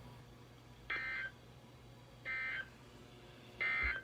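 Emergency Alert System end-of-message (EOM) SAME data tones: three short, evenly spaced bursts of digital data tones, each under half a second and a little over a second apart. They signal the end of the alert.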